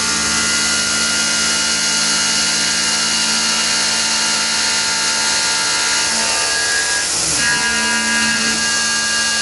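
Tormach PCNC 1100 CNC mill face milling under flood coolant: the spindle and face-mill cutter run steadily, a whine of several held tones over a hiss of coolant spray. The tones shift briefly about seven seconds in, then settle again.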